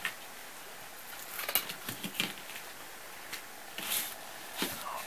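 Knife cutting the shank bone out of a venison hind quarter: faint, scattered small clicks and scrapes of the blade on meat and bone.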